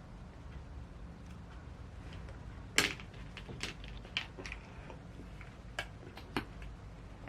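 A series of sharp clicks and light knocks from makeup tools and cases being handled, the loudest about three seconds in, over a low steady hum.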